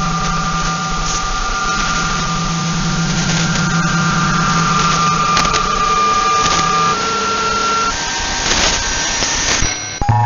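Shortwave receiver audio tuned to 14.075 MHz in the 20-metre amateur band: static hiss with a low buzzing hum and several steady whistling tones at different pitches that come and go. Near the end it switches abruptly to a run of stepping tones.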